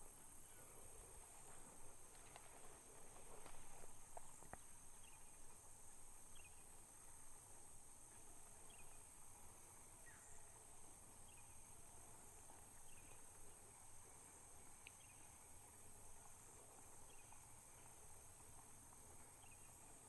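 Near silence in open country: a faint steady drone of insects, with a faint short chirp repeating every second or so.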